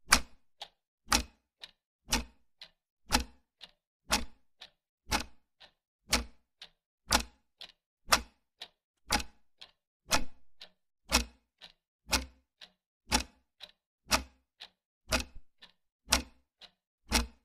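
Clock ticking steadily, with a louder tick once a second and a fainter tick about half a second after each.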